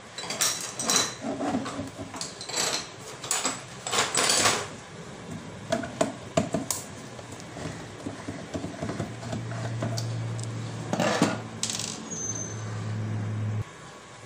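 Clicks, clinks and scraping of small hard parts as the plastic case of a water tank overflow alarm unit is taken apart. Later a low steady hum runs for a few seconds, broken by one loud scrape, and stops abruptly near the end.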